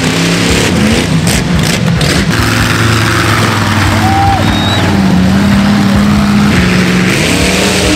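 Monster truck engine running at high revs, its pitch rising and falling as the truck crosses the junk cars and the dirt track.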